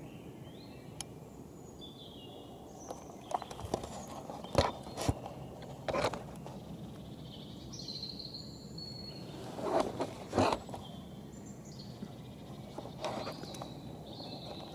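Outdoor woodland ambience: small birds give short high chirps over a steady low background noise, with a few sharp crackling rustles, like steps or handling in dry leaf litter, about three to six seconds in, near ten seconds and around thirteen seconds.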